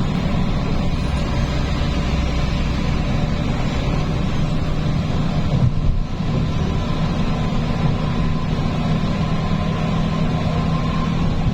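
A heavy vehicle's engine and road noise while driving, heard from inside the cab, with a steady low drone. There is a brief thump about six seconds in.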